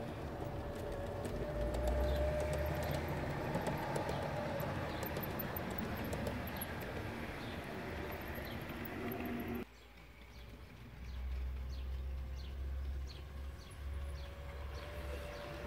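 Garden-scale model trains running on outdoor track: a steady motor whine, a low rumble and rapid clicking of wheels over the rail joints as a model electric locomotive passes close by. The sound drops off abruptly a little under ten seconds in, then a second model train approaches with the same rumble and clicking.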